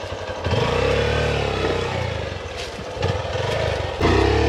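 Hero XPulse 200 motorcycle engine ticking over with an even pulsing beat, then revved in several bursts, its pitch rising and falling, about half a second in and again near the end.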